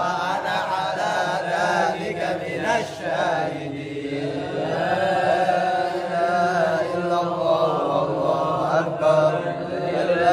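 A man reciting the Quran in Arabic from memory: a solo melodic chanted recitation in long, wavering, held phrases, with a short break for breath about four seconds in.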